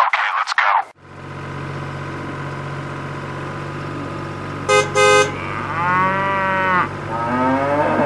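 Tractor engine running steadily with a low hum. About five seconds in, a horn toots twice. It is followed by two drawn-out cow moos that rise and fall in pitch. A short burst of sound comes at the very start.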